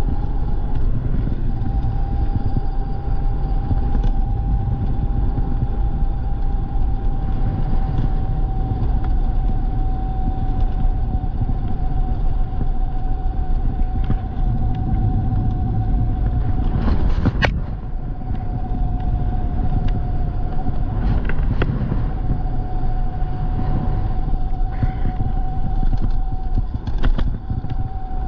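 E-bike being ridden at a steady speed: the electric motor's steady whine over a low rumble of tyres and wind on the microphone. The whine drops out briefly, with a sharp click, about seventeen seconds in and again near the end.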